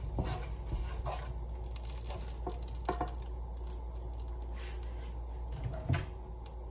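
Stirring in a kitchen container, with a few scattered light knocks, over a steady low hum.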